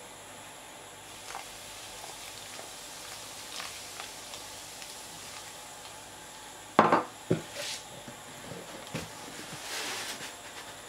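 Soda water fizzing softly as it is poured over minced beef and spices in a glass bowl. About seven seconds in, a sharp clunk as the drinking glass is set down on the counter, followed by a few lighter knocks.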